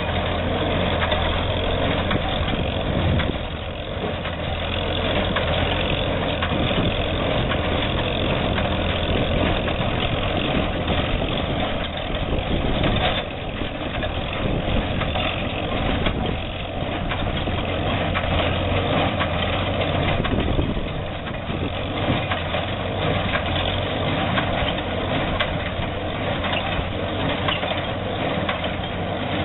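Tractor running steadily while powering an International 37 square baler baling hay: a continuous engine drone mixed with the baler's machinery.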